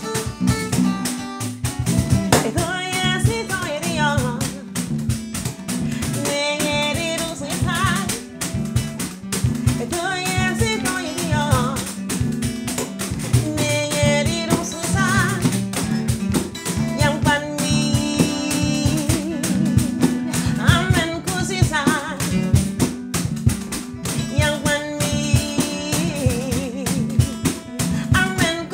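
Live acoustic band performance: guitar and drums play a steady groove, and a lead voice sings in phrases in the Ibibio language.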